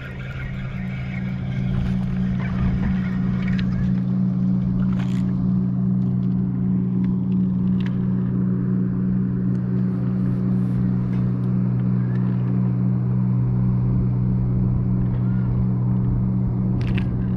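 A steady low hum that swells over the first couple of seconds and then holds, with a few short clicks or splashes about five seconds in and near the end.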